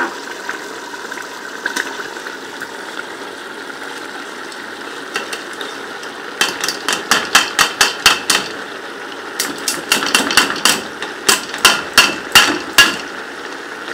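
Wooden spoon stirring chopped spinach in a metal pot of sizzling mutton curry, knocking against the pot in quick runs of taps, about five a second, from about six seconds in. A steady frying sizzle runs underneath.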